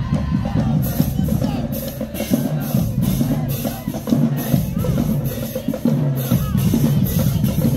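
Marching band drumline playing a marching cadence: bass drums and snares on a steady beat, with cymbal hits about two to three times a second starting about a second in.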